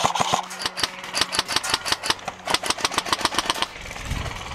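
Airsoft rifle firing a long full-auto burst: a rapid rattle of many shots a second over a steady motor hum. The firing stops about three and a half seconds in, giving way to a low rumble.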